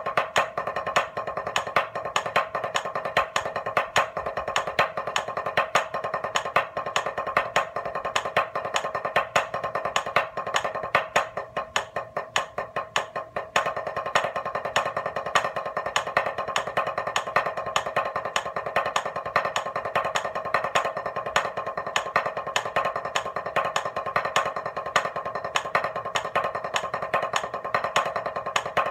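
Drumsticks playing a triplet grid in match grip: a fast, even stream of stick strokes with accents moving through the triplets. There is a softer passage in the middle, where single accented strokes stand out.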